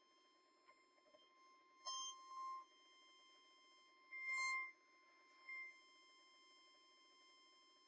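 Electronic tones: a faint steady high tone runs underneath while three louder beeps sound over it, about two seconds in, a longer and loudest one around four seconds in, and a short one soon after.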